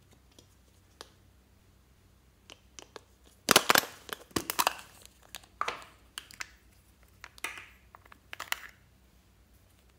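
Small hard plastic toy containers, a capsule egg and a round pot, handled close to the microphone: bursts of sharp clicks and crackling plastic rubbing. The loudest cluster comes about three and a half seconds in, with smaller clusters through the middle of the stretch.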